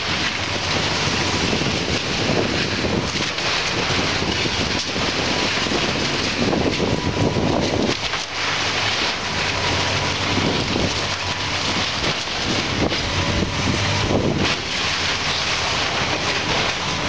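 Case hydraulic excavator's diesel engine running under load as its bucket tears into a wood-framed building, with irregular cracking and crashing of splintering timber and debris.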